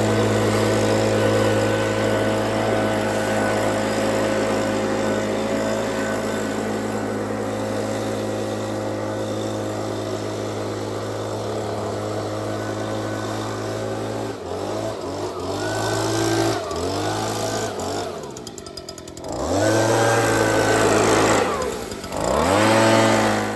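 Chainsaw running steadily under load in a chainsaw mill. In the last third the engine is revved up and down several times, and the sound cuts off suddenly at the end.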